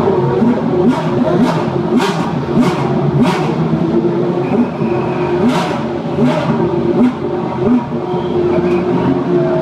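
Formula Renault 3.5 race cars' V8 engines running in the pit lane as the cars pull away, a steady engine drone broken by short sharp blips about every half second, with a pause in them around the middle.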